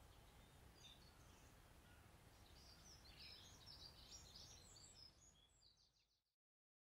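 Near silence: faint room tone with a flurry of faint, short, high-pitched chirps about two and a half to five seconds in, fading out just after six seconds.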